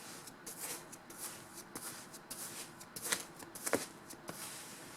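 Hands digging and scraping through kinetic sand, with soft, irregular rustling and a couple of sharper scrapes a little past halfway.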